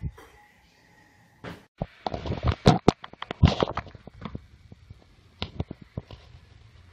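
Rustling, scraping and knocking on a phone's microphone as a long-haired cat's fur rubs against it. The loudest run of scrapes and knocks comes about two to four seconds in, then it settles to lighter rustles.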